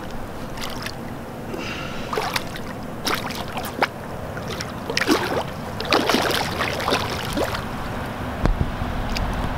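A big hooked catfish splashing and thrashing at the water's surface beside the bank as it is landed: a string of irregular splashes, busiest past the middle, with a low rumble near the end.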